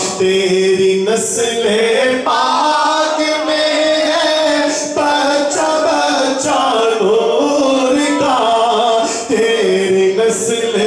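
A man sings a naat, an Urdu devotional poem in praise of the Prophet, in long held and wavering melodic phrases into a microphone.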